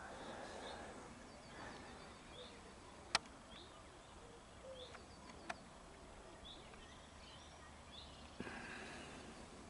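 Faint outdoor ambience with small birds chirping now and then, a short rising chirp every second or so. Two sharp clicks come about three seconds and five and a half seconds in.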